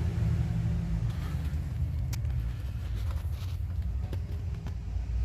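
A steady low rumble, with a few faint clicks from the purge valve's plastic electrical connector clip being worked by hand.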